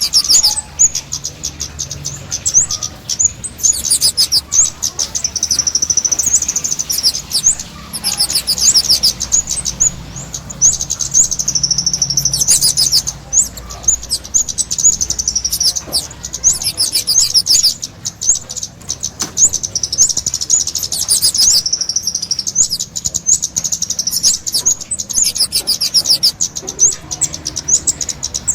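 Small songbird chirping in rapid, high-pitched trilled phrases, each a few seconds long and repeating with short breaks: a kemade jawa call used as a lure (pikat).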